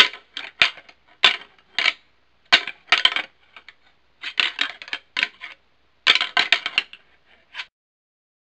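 Whitetail deer antler rattling: antlers clacking and grinding together in irregular bursts, some single knocks and some quick runs of clicks, the sound of two bucks sparring. It stops shortly before the end.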